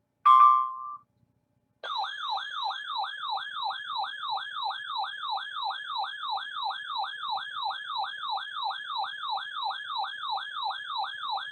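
Weather radio alert tone: a short loud beep, then from about two seconds in an electronic siren-like warble that sweeps up and down about three times a second, announcing a new severe thunderstorm warning.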